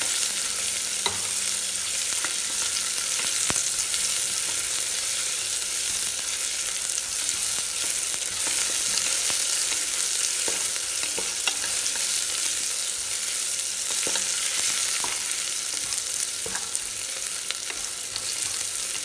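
Sliced onions sizzling steadily in hot oil and ghee in an aluminium pressure cooker while a spatula stirs and scrapes them, with scattered light clicks of the spatula against the pot.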